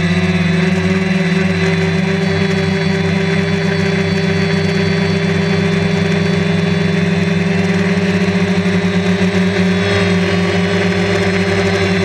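Drone's motors and propellers whirring steadily in flight: a constant, even-pitched hum.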